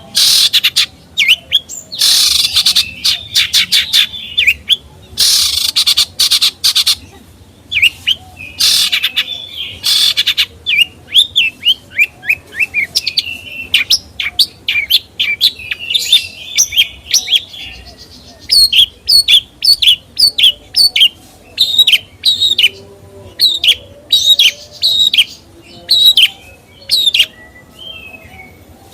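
A songbird singing without a break: rapid sharp chirps and short whistled notes that sweep up and down, with a few harsh, noisy bursts in the first seven seconds.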